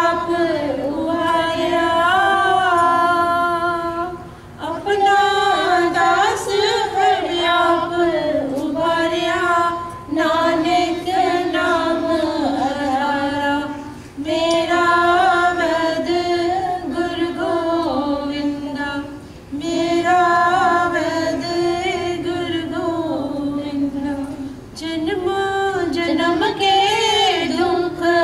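Women's voices singing a Sikh shabad (Gurbani kirtan) together, in long held phrases with short breaks for breath about every four to five seconds.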